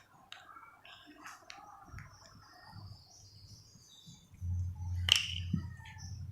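Small plastic slime tub being handled: soft clicks and rustles, then a low rumbling handling noise from about four seconds in, with one sharp click about five seconds in.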